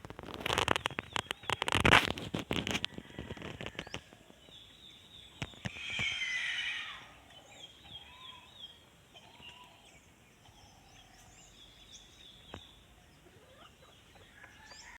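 Pet parrot: a loud burst of rapid rustling and clicking in the first three seconds, then one harsh call falling in pitch about six seconds in, followed by faint short chirps.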